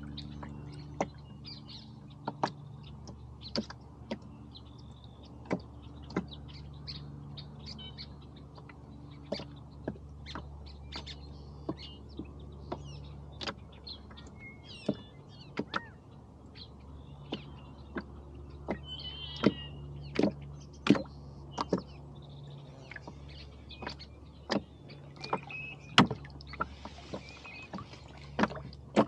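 Irregular sharp clicks and knocks from a rowboat and its oars, over a low steady hum, with small birds chirping now and then.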